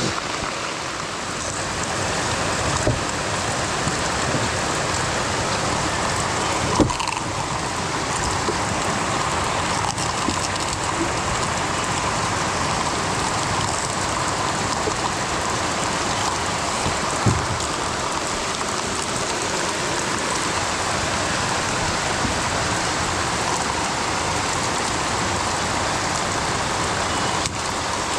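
Heavy rain falling steadily. There are a few short, sharp knocks, the loudest about seven seconds in.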